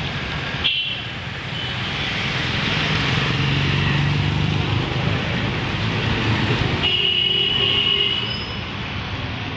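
Heavy rain falling, heard with road traffic. A vehicle passes, loudest about three to five seconds in, and a brief high-pitched tone sounds for about a second near the end.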